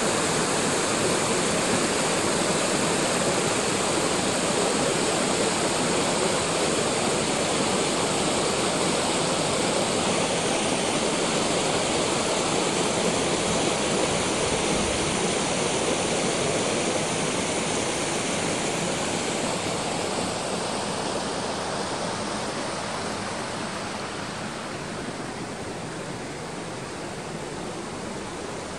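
Rushing water of a rocky river tumbling through small cascades and rapids over boulders, a steady unbroken rush that grows somewhat quieter in the second half.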